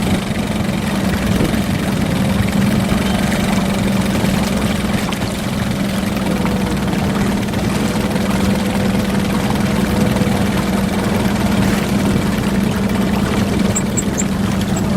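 Fishing boat's motor running steadily at low speed, a constant low drone with a faintly wavering hum above it.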